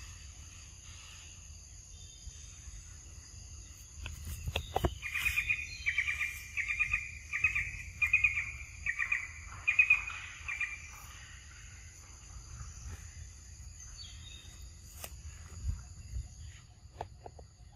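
Forest ambience: a steady high insect drone, with a bird calling a run of about nine repeated chirps, each a little under a second apart, from about a quarter of the way in to past the middle. A few faint sharp clicks near the end.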